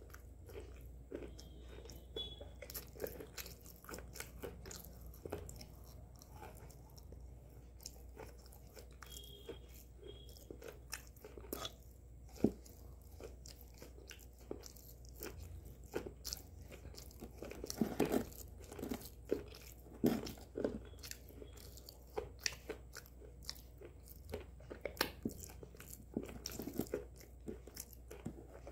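Close-up biting and chewing of a hard white slate pencil: irregular sharp crunches and crackles, with the loudest bites coming in a cluster about two-thirds of the way in.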